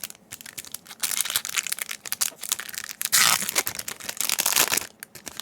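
A foil Yu-Gi-Oh booster pack being torn open and crinkled, a dense crackle of ripping and crumpling wrapper with sharp snaps, loudest about a second in and again past the three-second mark.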